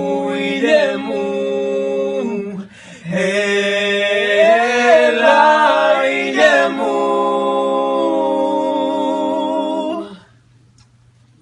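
Several voices singing a cappella in harmony, with a short breath-pause about three seconds in. They end on a held chord and stop together about ten seconds in.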